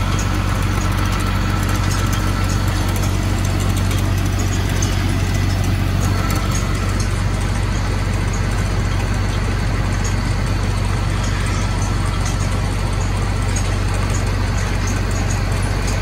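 Machinery running steadily: a constant low hum under a wide rushing noise that does not change.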